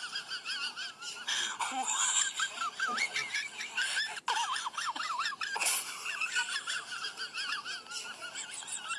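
A cat chattering with its mouth open: a long run of quick, warbling, wavering high-pitched calls. A sharp click a little past four seconds in.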